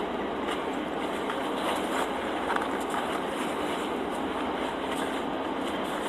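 A person chewing a bite of toasted vegetable sandwich, with small soft mouth clicks about every half second over a steady hiss of background noise.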